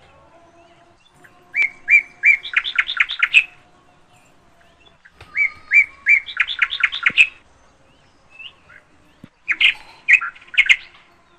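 A songbird singing the same phrase three times, about four seconds apart. Each phrase is a few separate chirps followed by a quick run of notes.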